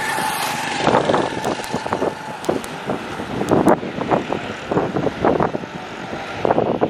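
A small motorcycle engine passes close by and moves off, over gusting wind on the microphone.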